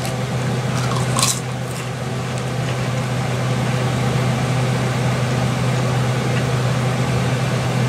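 Foil potato chip bag crinkling briefly about a second in as a hand digs into it, over a steady low hum.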